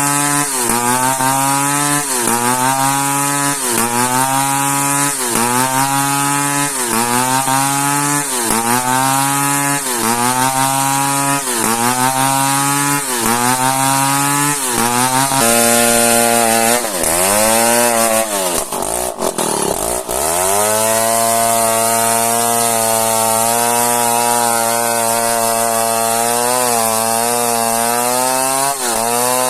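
A two-stroke chainsaw cutting an old merbau hardwood log at high revs. For the first half its pitch dips about once a second as the chain bites. Around two-thirds in it bogs down low and recovers, then runs at a steady high pitch through the cut.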